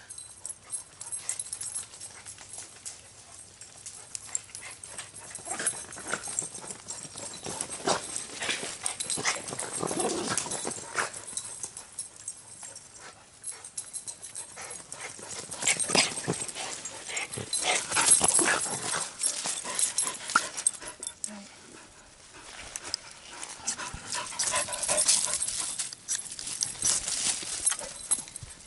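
A dog close by, sniffing and panting among irregular rustling and scuffing of dry leaves and grass, louder in stretches.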